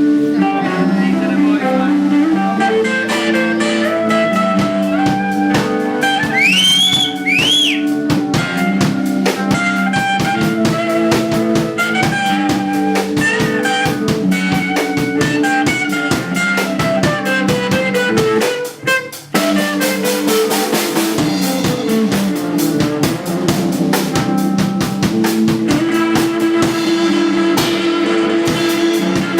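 A live band playing with drum kit and guitar over a steady beat, with a couple of sliding bent notes a few seconds in and a brief break in the sound a little past the middle.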